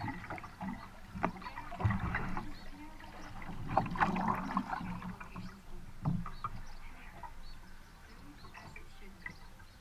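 Double-bladed kayak paddle dipping and pulling through the water on alternating sides, with splashing and dripping from the blades and water rippling along a wooden kayak's hull. The splashes are loudest around 2, 4 and 6 seconds in and ease off near the end.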